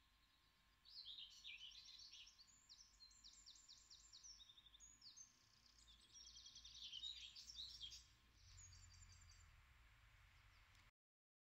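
Songbirds singing outdoors in quick, high chirps and trills, busiest in the middle. The song then fades to a faint low rumble, and the sound cuts off abruptly near the end.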